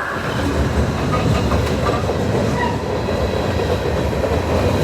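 Train passing at close range: a really loud, steady rumble of its wheels running on the track, growing a little louder near the end.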